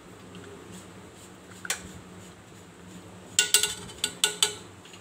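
Steel spoon stirring noodles in an aluminium pot of water, knocking against the pot: one light clink about two seconds in, then a quick run of sharp, ringing clinks near the end, over a faint steady hum.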